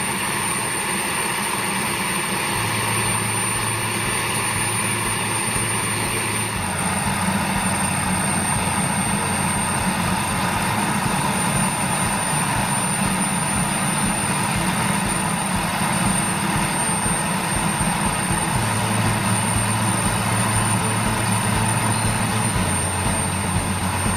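Model jet turbine running steadily, with a constant high whine over its rushing noise; it grows a little louder and fuller about six seconds in.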